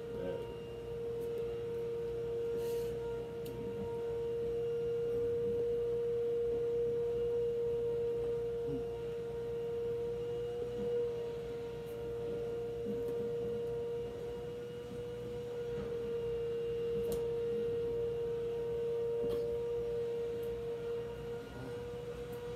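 A steady hum at one fixed pitch, with a few faint clicks.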